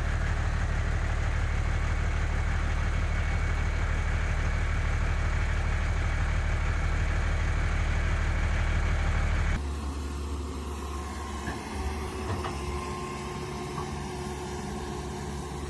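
A heavy vehicle engine running steadily with a low rumble. About ten seconds in it cuts abruptly to a quieter engine sound.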